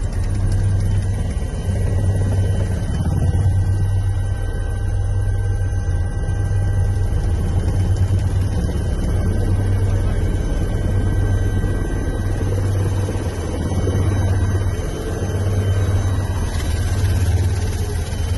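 Helicopter rotor and turbine engine running steadily, heard from inside the cabin: a loud low drone that swells and eases slightly, with a faint steady whine above it.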